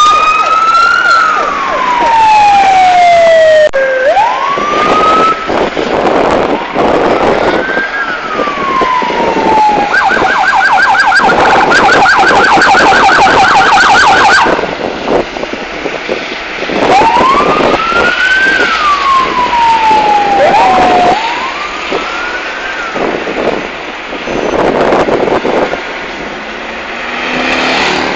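Police car sirens wailing, with long rising and falling glides that overlap at times. About ten seconds in, they switch to a rapid yelp for several seconds, then return to the wail, and the sirens get somewhat fainter near the end.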